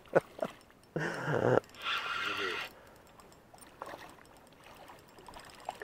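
A man's short voiced sound, like a strained grunt, about a second in, then a rushing, breathy noise for under a second; after that only faint small sounds.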